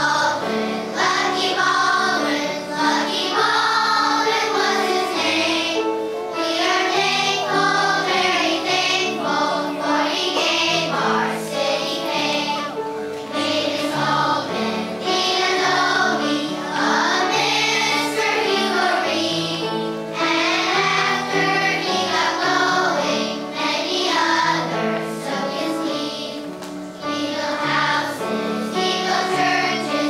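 A third-grade children's choir singing a song together over a musical accompaniment.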